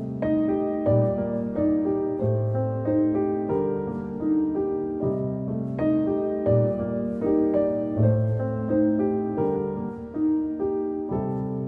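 Background piano music: a slow melody of single notes over held bass notes.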